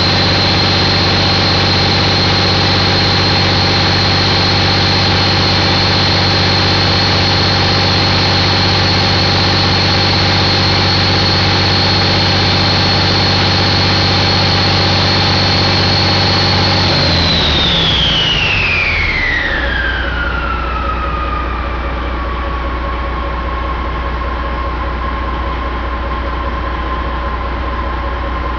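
Detroit Diesel Series 60 11.1-litre inline-six diesel running steadily at raised speed with a high turbocharger whine. About two-thirds of the way through the throttle comes off: the whine glides down and settles lower as the engine drops back to a low idle.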